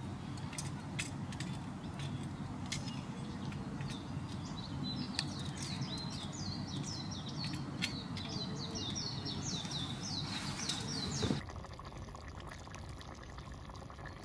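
A bird singing a fast run of high chirps for several seconds, over scattered sharp crackles from a wood campfire and steady low background noise. A little before the end the sound cuts abruptly to a quieter background.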